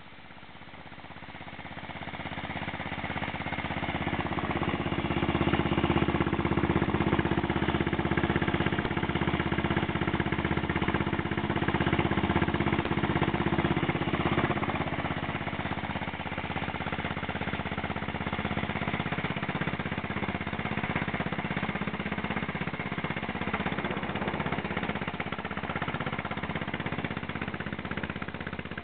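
Terrot 350 vintage single-cylinder motorcycle engine running under load on a slow uphill climb, its rapid firing pulses growing louder over the first few seconds and easing slightly about halfway through.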